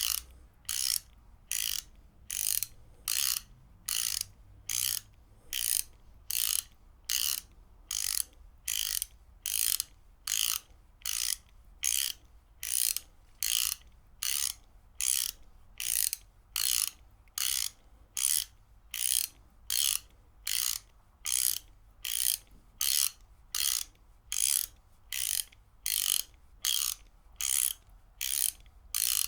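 Ratchet wrench clicking in short, evenly spaced bursts, about three every two seconds, as it is swung back and forth.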